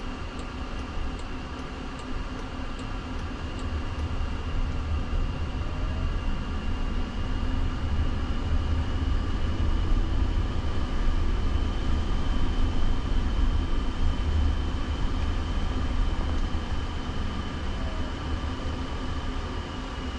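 Road and tyre noise inside the cabin of a Jaguar I-Pace electric car driving on a city street. A low rumble grows louder as the car picks up speed, is loudest around the middle, then eases, with a faint steady high whine above it.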